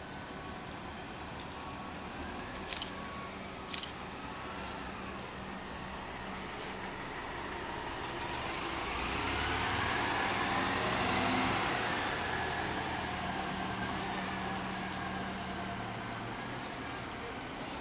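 City transit bus driving past close by: its engine hum and a whine that rises and falls in pitch swell to a peak about eleven seconds in and then fade. Two short sharp clicks sound about three and four seconds in.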